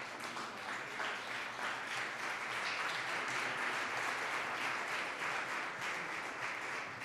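Audience applauding: steady clapping from a roomful of people, swelling a little in the middle and easing near the end.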